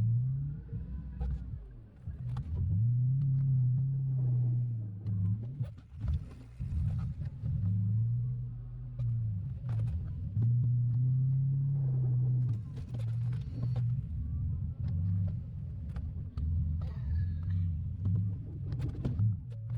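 A 2002 Chevrolet Silverado's 8.1-litre big-block gas V8 running under varying throttle while plowing. Its low note rises and falls again and again as the truck speeds up and slows, with scattered clicks and knocks over it.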